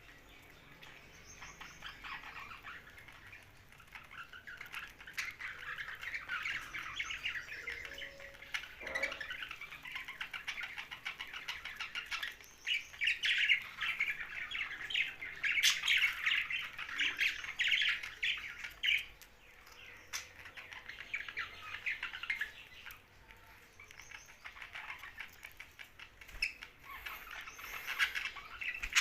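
Young budgerigars chirping and squawking in fast, dense chatter that comes in stretches with short lulls, loudest around the middle.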